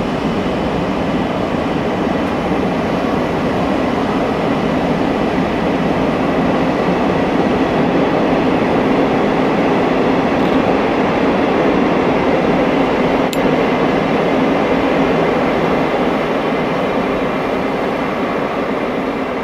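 Cabin sound of a 419-series electric train pulling away from a station: a steady rumble of motors and wheels that slowly grows louder, with a thin steady whine above it. One sharp click comes about thirteen seconds in.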